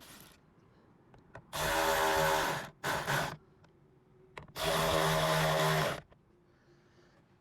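A cordless drill-driver runs in two bursts of about a second each, with a short spurt between them, starting and stopping sharply as screws are driven in.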